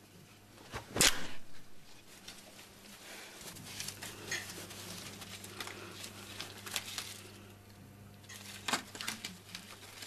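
Rustling and crinkling of a tight sequined dress as it is pulled on, with a sharp, loud swish about a second in and another near the end, over a faint steady hum.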